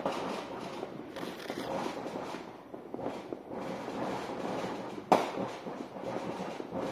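Fireworks and firecrackers (cuetes) going off nonstop, a dense crackle of many small bangs that sound like gunshots, with one sharp, louder bang about five seconds in.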